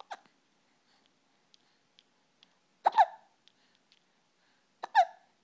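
Hiccups: three hiccups about two seconds apart, the first faint, each a sharp click with a short falling squeak.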